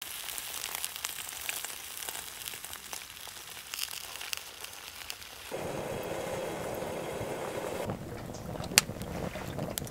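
Eggs and sausages sizzling in a pan over a wood-burning camp stove, with a high crackly hiss full of small pops. About five and a half seconds in, this gives way to a duller rushing sound. After about eight seconds it turns to a stick fire crackling, with a few sharp snaps.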